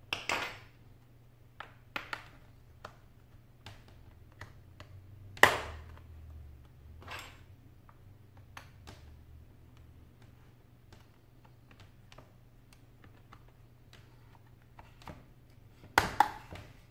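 Scattered clicks and snaps as a metal pry tool works along the case seam of an ASUS ultrabook, prying the shell apart. The loudest snap comes about five and a half seconds in, and a quick pair of sharp clicks comes near the end.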